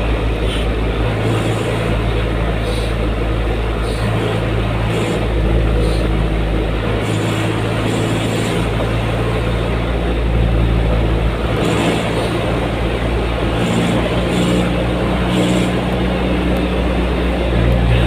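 Steady engine and road noise from inside the cabin of a moving vehicle, a continuous low rumble.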